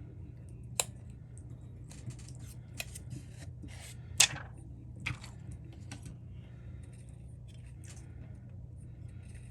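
A few sharp clicks and snips from small hand tools and phone parts being handled, the loudest about four seconds in, over a steady low hum.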